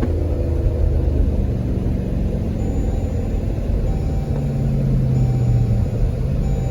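Dodge Durango R/T's 5.7 Hemi V8 with AFE shorty headers on the stock exhaust, running steadily.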